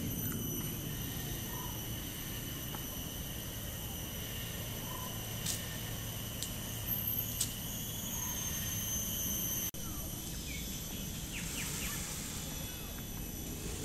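Outdoor park ambience: a steady high insect drone over a low rumble, with three sharp clicks in the middle and a few faint short bird chirps in the last few seconds.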